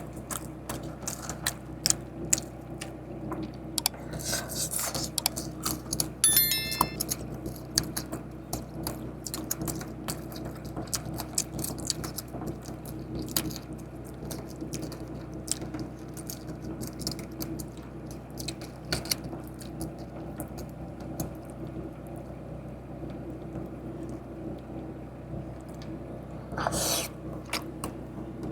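KFC takeout packaging being handled and opened in a parked car: scattered paper and plastic crinkles and clicks over a steady low cabin hum. A brief high chime sounds about six seconds in, and a longer rustle comes near the end.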